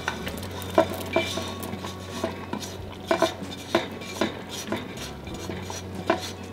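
Silicone spatula scraping and knocking fried pork pieces out of a nonstick skillet into a clay pot of boiling sauce: a string of irregular clanks and taps, about two a second, over a steady low hum.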